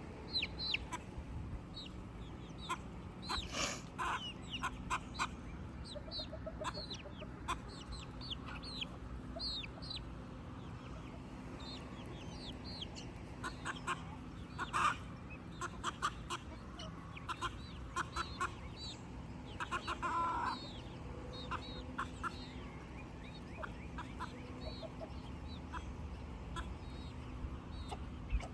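A flock of backyard chickens clucking and cheeping while they eat, many short high calls overlapping, with a few sharp clicks among them.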